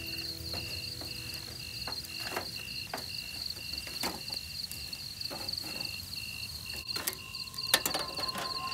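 Crickets chirping at night in two steady high trills: one pulsing rapidly, the other in short regular pulses about twice a second. Scattered sharp clicks come through, the strongest about three-quarters of the way in.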